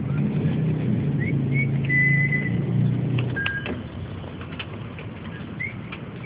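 A motor running with a low steady hum, louder for about the first three seconds and then quieter. Short high chirps and whistle-like tones and a few clicks sound over it.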